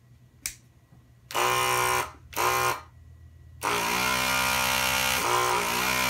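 A click, then the vacuum pump of an Aoyue 8800 desoldering gun buzzing in two short runs and then one long steady run, as the trigger is pulled to test suction. It is pulling air through a re-designed filter canister and still sounds like it has some vacuum to it.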